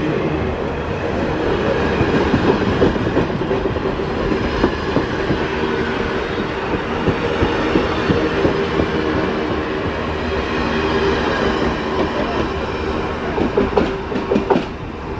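Canadian Pacific Holiday Train's passenger cars rolling past close by: a steady rush of steel wheels on rail with a running series of clacks and a steady hum. A burst of louder clacks comes near the end as the last car goes by, then the sound drops away.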